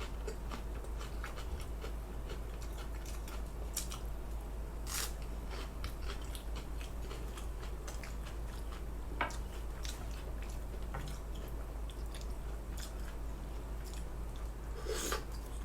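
A person chewing food close to the microphone: scattered crisp bites, crunches and small mouth clicks at an uneven pace over a low steady hum.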